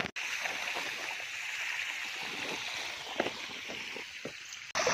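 Steady rush of running water, with a few faint taps and rustles; it starts and stops abruptly.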